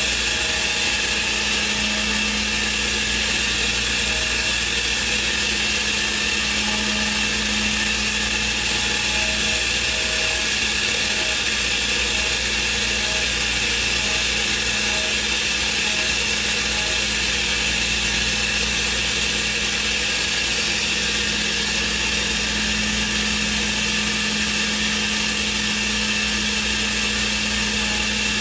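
Thermwood five-axis CNC router running: a steady machine hum and hiss with several held tones, and short on-off tones repeating through the first half.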